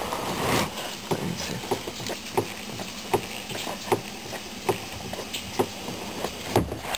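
Rubber primer bulb on an outboard's fuel line squeezed by hand again and again, a short sharp sound roughly every half second to second, pumping fuel from the portable tank up to the engine before a start.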